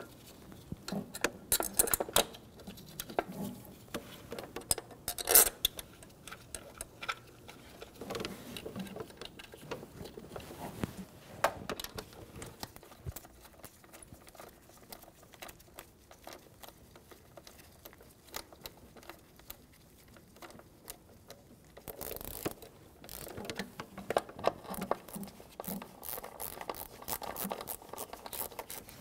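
Hand ratchet and socket clicking as the ignition coil pack's mounting bolts are run in, with scattered light taps and knocks of tools and parts; the clicking comes in quick runs, busiest near the end.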